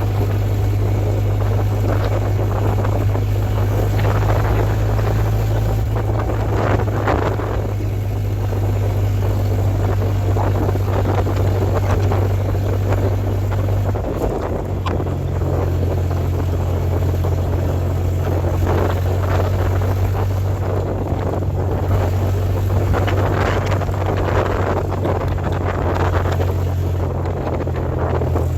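1956 Willys Jeep CJ5 engine droning steadily while cruising on the road, with wind buffeting the microphone. The engine note shifts about halfway through.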